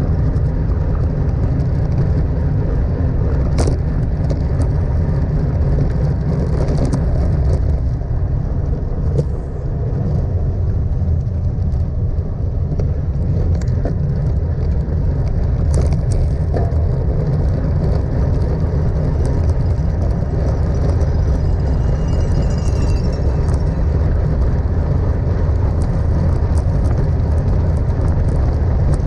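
Wind buffeting a GoPro's microphone on a bicycle at road-race speed: a steady low rumble, with a few sharp clicks scattered through it.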